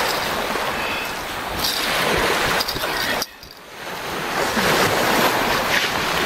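Surf washing on the shore, with wind buffeting the microphone. The sound drops away abruptly a little over three seconds in, then swells back up.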